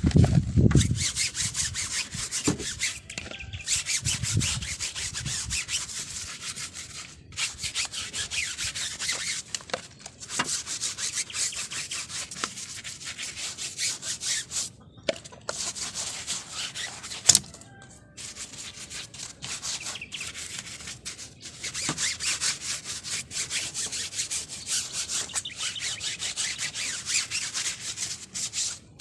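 A cloth or sponge scrubbing a car's body in quick repeated strokes, with short pauses between bouts. There is a low thud at the start and one sharp click about seventeen seconds in.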